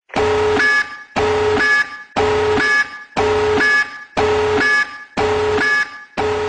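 Nuclear power plant meltdown alarm sound effect: a loud buzzing alarm blast repeating about once a second. Each blast starts on a low tone and ends with a higher tone.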